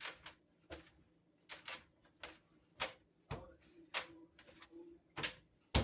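Bread dough being kneaded by hand: a series of soft slaps and presses at an uneven pace, about two a second.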